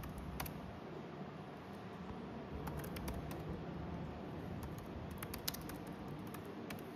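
Typing on an ASUS Vivobook laptop keyboard: scattered, irregular key clicks, with a quicker run of taps about five seconds in, over faint steady room noise.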